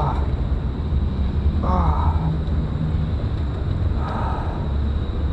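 A person's voice crying out a few times in short, falling-pitched cries over a steady low rumble.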